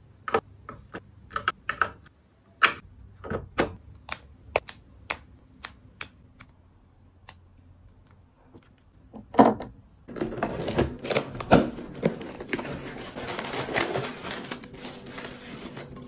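Light plastic clicks and taps, one after another, as cosmetic items and sample packets are set down in plastic organizers, with one louder knock about nine seconds in. From about ten seconds in comes steady rustling and crinkling of plastic packaging, dotted with small clicks.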